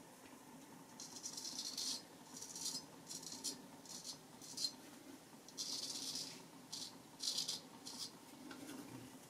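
Straight razor scraping lathered stubble off the neck and jaw in a series of short scratchy strokes, some lasting about a second.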